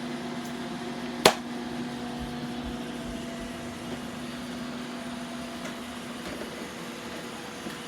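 Robot vacuum cleaners running on a rug: a steady motor hum with a level tone in it that drops out about six seconds in. One sharp click sounds about a second in.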